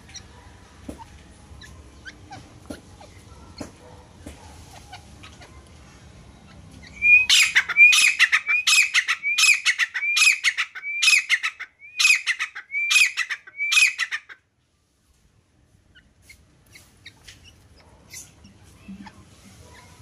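Grey francolin calling: a loud series of about ten high-pitched notes, evenly spaced a little over half a second apart, starting about seven seconds in and stopping abruptly halfway through. Faint ticks and rustles come before and after the calls.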